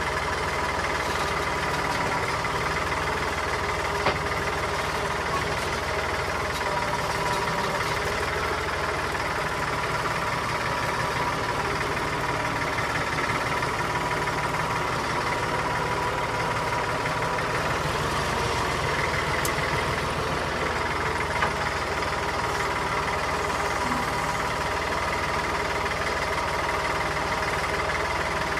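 Massey Ferguson tractor engine running steadily, with a couple of faint knocks from the load being shifted.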